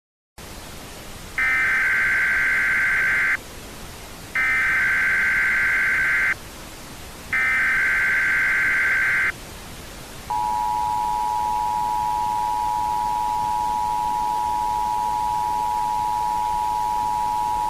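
Emergency Alert System signal: three screechy bursts of digital SAME header data, each about two seconds long with a second's pause between, then the steady two-tone EAS attention signal held for about eight seconds, all over a faint hiss. It is the opening of an emergency alert, here the one that issues a tornado warning.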